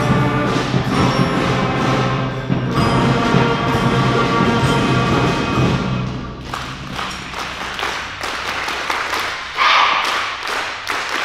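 Beginner concert band of woodwinds, brass and percussion playing, closing on a held chord that cuts off about six and a half seconds in, followed by scattered clapping.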